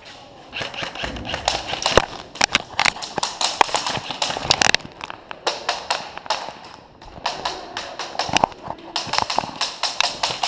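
Quick running footsteps with gear and the camera jostling: a stream of sharp knocks that settles into an even pace of about four or five steps a second near the end.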